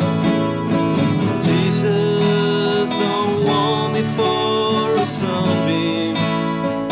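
Two acoustic guitars played together in a folk-style song, with a man singing along.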